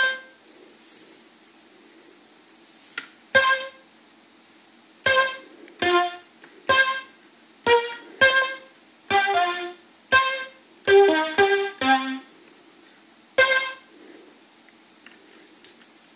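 Solina-style string synthesizer running on an Arduino Nano, played in about a dozen short chord and note stabs with gaps between them. Each stab starts with a click, and there is a quicker run of notes about eleven seconds in.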